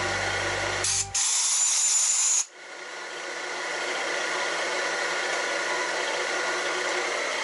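Milling machine running with a steady whir. About a second in, a loud hiss cuts across it for about a second and a half, then stops suddenly.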